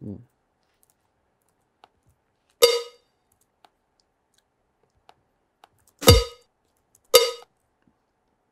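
A deep-house cowbell one-shot sample played back three times as short metallic hits. The second hit lands together with a deep thump. Faint mouse clicks sound between the hits.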